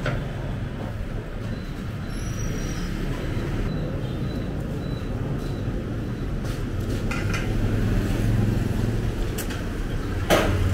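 Low steady rumble of street traffic, swelling for a few seconds as a vehicle passes, with a sharp clink near the end.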